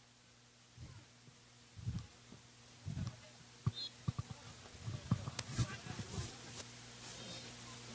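Faint steady electrical hum, with scattered soft low thumps and a few sharp clicks over it.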